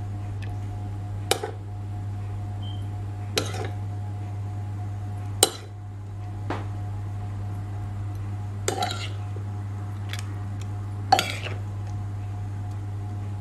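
About five sharp clinks of hands and kitchen utensils against a dish as fish and seasonings are arranged in it, the loudest about halfway through, over a steady low hum.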